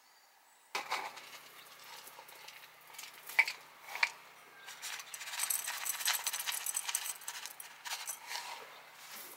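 Coarse grit stones poured from a soil scoop into an unglazed terracotta bonsai pot, clinking and rattling against the clay. A couple of sharp clinks come first, then a longer run of stones rattling into the pot about halfway through.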